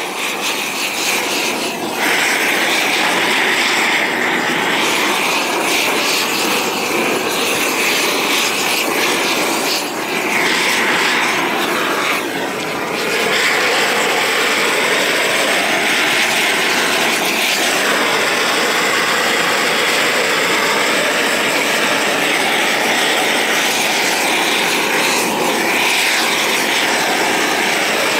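Gas roofing torch burning with an open flame, heating torch-on bitumen felt. The flame noise gets louder about two seconds in, dips briefly twice near the middle, then holds steady.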